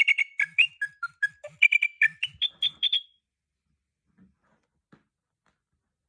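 Nokia 6610 mobile phone playing a ringtone: about three seconds of quick, short beeping notes in a bouncing melody that climbs to higher notes near the end, then stops. A couple of faint clicks follow.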